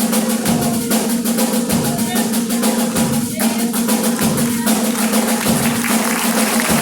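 Percussion band drumming a fast, even rhythm over a musical backing with a held low note; the drumming thins out about five seconds in.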